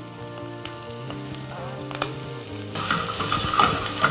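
Chopped pickled cabbage, garlic and chili sizzling in a nonstick frying pan. About three seconds in, the sizzle gets suddenly louder as a slotted spatula stirs the mix, with scraping and clicks against the pan.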